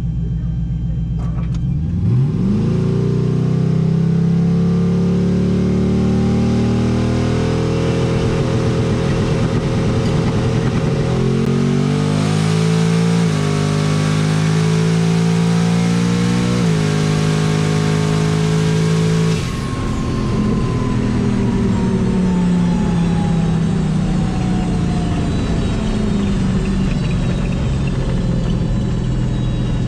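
Turbocharged 4.8 L LS V8 on a drag pass: it idles, revs up sharply about two seconds in and runs hard at high revs, with a few sudden steps in pitch as it changes gear. About two-thirds of the way through it lifts off, and a falling whine follows as the truck slows.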